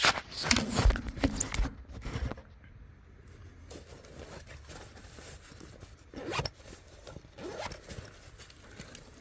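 Handling noises: a quick run of scrapes and sharp clicks, as of a metal access panel or tools being worked, then a few fainter scrapes further on.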